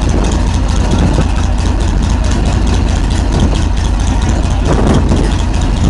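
Tiger I tank's Maybach V12 petrol engine running with a deep, steady rumble as the tank creeps forward, with a brief louder surge about five seconds in.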